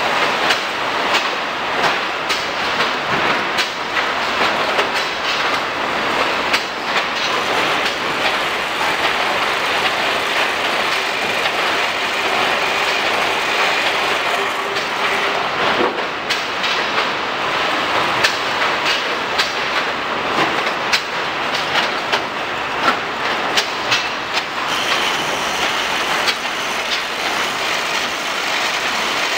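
Automatic carton packaging line running: a steady machine noise with frequent irregular clicks and knocks from the carton sealer and the roller conveyors as cartons pass through.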